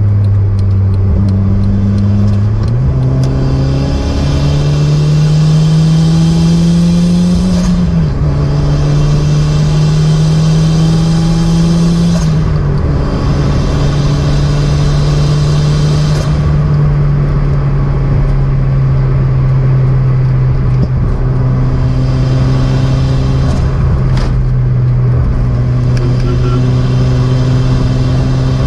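Turbocharged car engine pulling under acceleration, its note climbing and falling back twice before holding steady at cruise from about halfway through. A high turbo whistle sits over the engine while it pulls, then fades out.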